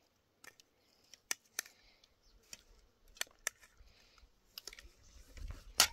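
Irregular sharp clicks and light taps, about a dozen, with a louder click just before the end.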